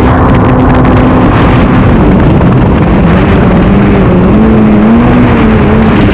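Kommander GP1 stand-up jet ski engine running under way over a loud rushing noise. Its pitch holds steady, drops about two seconds in, then wavers up and down with the throttle.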